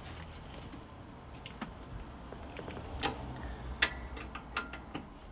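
Hand-turned L-shaped Torx key working a bolt on a van seat frame: scattered light metal clicks and ticks, the loudest two about three and four seconds in, then a quick run of ticks.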